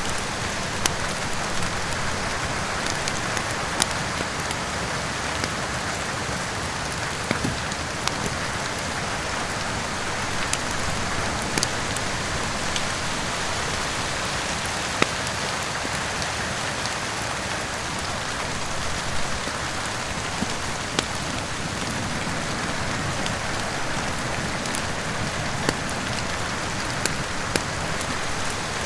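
Steady heavy rain, with scattered sharp crackles and pops from a burning wood fire at irregular moments.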